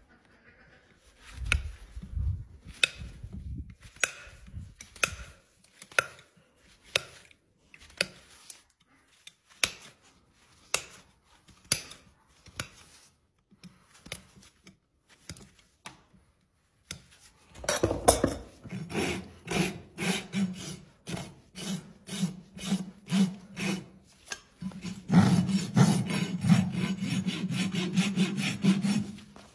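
Hoof nippers cutting a horse's hoof wall, a sharp snap with each bite about once a second. About halfway through, a hoof rasp takes over, filing the hoof in quick, rhythmic strokes that become almost continuous near the end.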